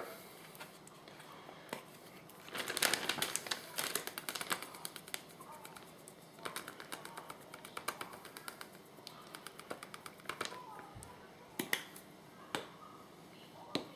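Onion powder being shaken from a spice shaker into a bag of flour: runs of quick, faint rattling ticks a couple of seconds long, with a few sharper clicks near the end.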